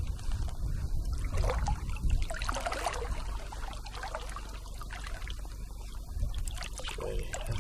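Shallow seawater trickling and sloshing around a striped bass held by the tail in the surf shallows as it is released, over a steady low rumble.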